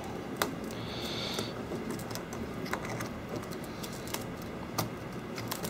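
Irregular sharp clicks and crackles of shattered iPad 4 glass being chipped and pried off the frame with a metal blade, the loudest click about half a second in, with a brief high-pitched scrape about a second in.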